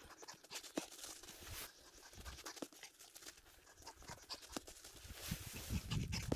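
Faint, scattered scratching and crunching of a dog's paws running on dry sandy ground and pine needles, with a low rumbling that grows louder near the end.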